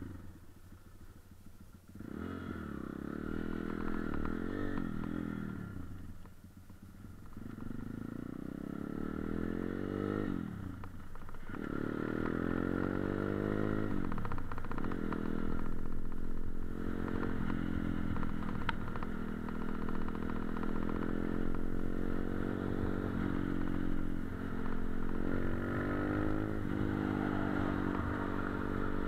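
Off-road motorcycle engine pulling away about two seconds in, its pitch climbing through each gear and dropping at three gear changes, then running steadily at cruising speed.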